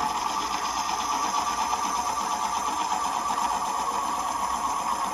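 Electric pencil sharpener running steadily, its small motor whirring as the blades grind.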